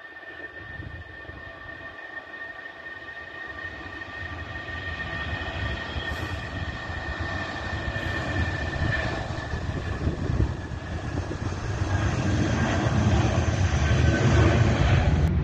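Airbus A319 jet engines at takeoff thrust during the takeoff roll: a steady high whine over a rumble. The rumble grows steadily louder, strongest near the end.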